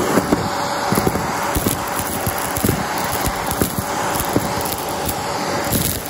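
Vacmaster vacuum cleaner running with a steady whine while sucking up dirt and small plastic bits, which crunch and crackle through it in quick irregular clicks.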